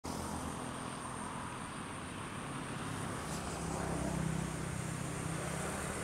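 Distant engine running steadily with a low hum that swells a little about four seconds in, over outdoor background noise and a thin steady high tone.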